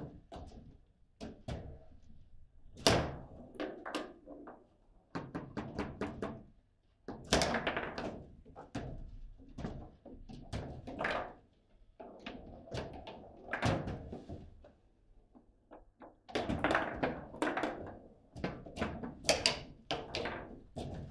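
Table football played at speed: irregular clusters of sharp knocks and clacks as the ball is struck by the rod men and bounces off the table walls, and the rods knock against the table. The loudest knocks come about three seconds in and again near the end.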